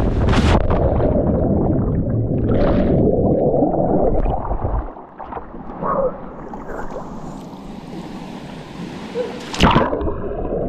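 A splash as a body hits the water of a swimming pool after a jump from the high diving platform, then about four seconds of rushing and gurgling bubbles with the microphone underwater. After quieter sloshing at the surface, a second jumper plunges in near the end: another sharp splash and a rush of bubbles underwater.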